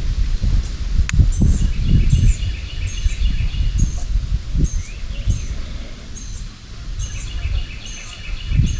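Songbirds singing in the woods: one repeats a short high note about twice a second while another sings rapid trills, over a steady low rumble. A single sharp click comes about a second in.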